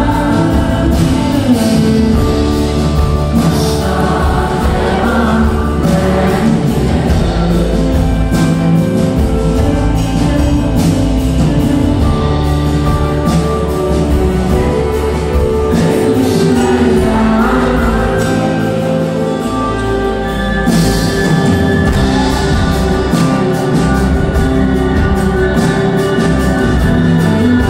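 Live band playing a song on stage, with singing over guitars and drums.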